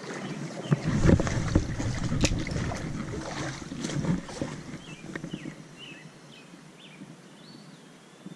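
Low rumbling wind and handling noise on the microphone with scattered clicks, loudest over the first four seconds and then fading to a quiet outdoor hiss. A small bird chirps in the background, with a longer whistled call near the end.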